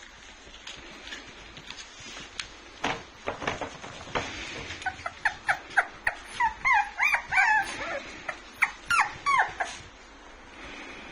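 A dog whimpering: a quick run of short, high, rising-and-falling whines about halfway through, after some scattered clicks and taps.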